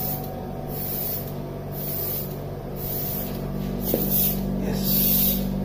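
Short bursts of hissing air repeating about once a second, at a small child's breathing rate, over a steady low hum from operating-theatre airway equipment. A brief click about four seconds in.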